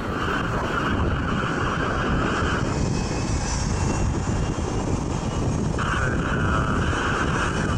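Boeing 757 jet airliner taxiing past, its twin turbofan engines running at low thrust with a steady noise. A whine from the engines fades out about two and a half seconds in and comes back about six seconds in.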